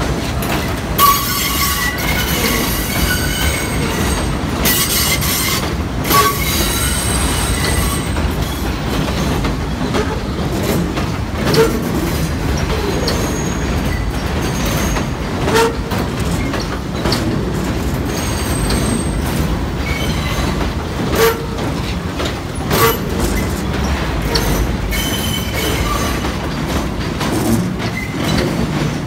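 R68 subway train pulling out of the station past the listener, its steel wheels running with a steady rumble. There is high-pitched wheel squeal at times, most in the first several seconds, and sharp clacks every few seconds as the wheels cross rail joints and switches.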